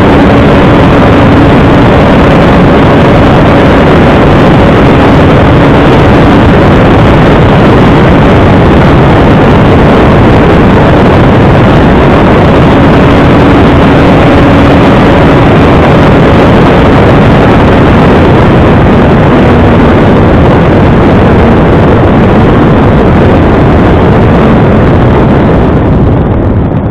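Motor and wind noise from a camera fitted on a radio-controlled Airvan model airplane in flight: a loud, steady rush with a faint steady motor tone under it. It eases off just before the end.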